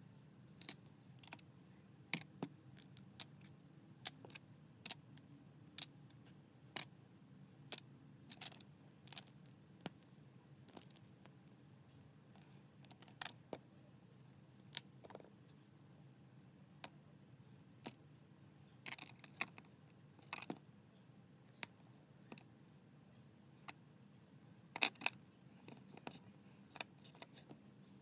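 Plastic Lego bricks and plates clicking as they are handled and pressed together on a baseplate. The clicks are sharp and irregular, with a few short bursts of rattling clatter, over a faint steady hum.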